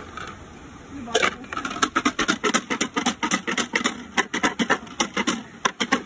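Small Langur Burja dice rattling and clacking inside an upturned plastic mug held against a plate as it is shaken: a quick, irregular clatter of clicks that starts about a second in.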